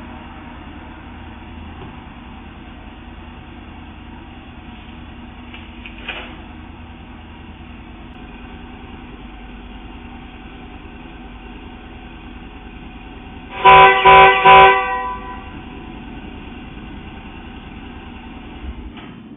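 Car horn sounding three short, loud blasts over a steady low hum.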